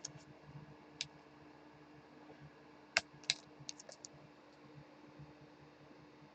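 A few faint, scattered clicks and taps: a single click at the start, another about a second in, then a closer cluster around three to four seconds in, over a faint steady hum.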